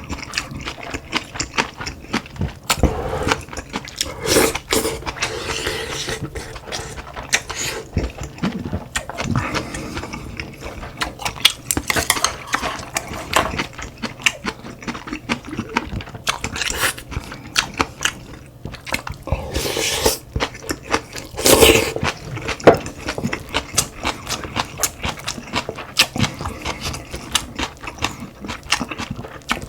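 Close-miked eating sounds of a person eating spicy cod-head stew and rice. Chewing is mixed with many short sharp clicks of spoon and chopsticks against bowls, with a few louder clusters now and then.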